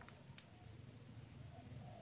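Faint handling of a sheet of origami paper as a fold is pressed flat by hand: two light ticks, one at the start and one about half a second in, over a low steady hum.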